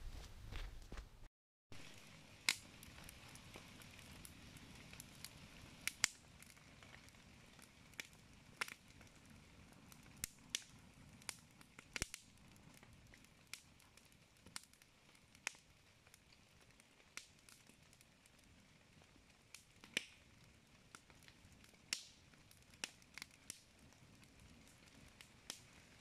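Wood campfire crackling, with sharp pops at irregular intervals, roughly one a second, over a faint low hiss.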